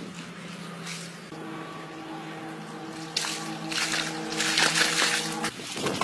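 Water splashing as a person swims in a shallow pool, in a short splash about three seconds in and a longer run of splashing near the end. Underneath are steady held tones, likely background music.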